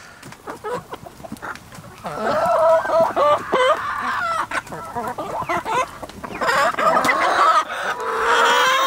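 Backyard chickens calling all at once, many overlapping clucks and squawks that the owner calls synchronized complaining. The calls start about two seconds in, after a few soft taps, and a longer drawn-out call comes near the end.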